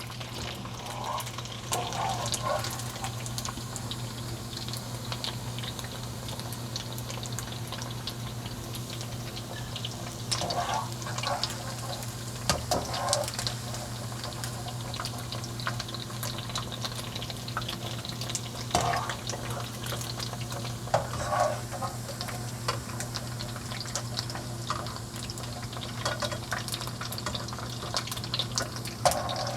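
Hot cooking oil sizzling and crackling around pieces of fried tofu as they are lifted out of the pan, over a steady low hum, with a few brief louder sounds along the way.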